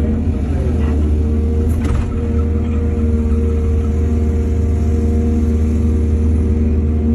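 Excavator's diesel engine running steadily with a deep hum, with two brief knocks about one and two seconds in.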